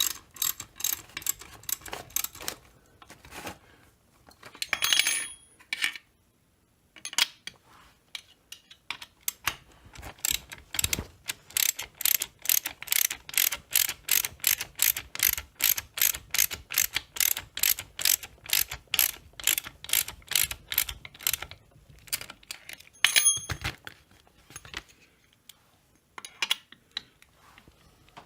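Hand ratchet with a 1/4-inch socket clicking in long runs of even clicks, about three a second, as crankcase screws are turned down snug. There is a brief pause partway through, and a couple of metallic clinks.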